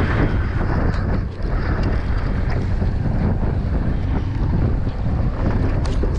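Strong wind buffeting the microphone in a steady low rumble, over choppy sea water washing along the boat's side.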